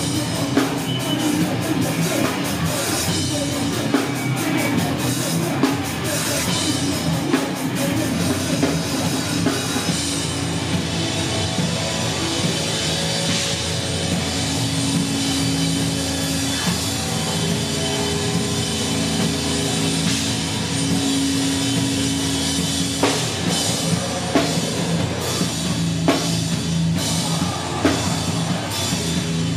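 A live heavy rock band playing loudly on a drum kit and amplified instruments. About ten seconds in the cymbals drop back into a slower passage of long held notes, and sharp drum hits come back about two-thirds of the way through.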